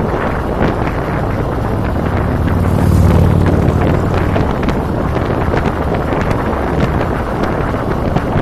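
Wind buffeting the microphone over the steady low rumble of a cruiser motorcycle's engine at road speed; the engine swells briefly about three seconds in.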